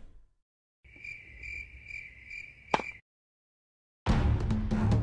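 A cricket chirping: a high, steady trill that swells about twice a second, ending with a sharp click about three seconds in. After a moment of silence, loud action music with percussive hits comes in about four seconds in.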